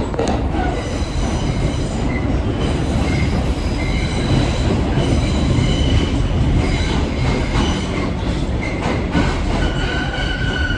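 Subway car of the New York 6 train running on the rails: a loud, steady rumble, with high squealing tones from the wheels that come and go.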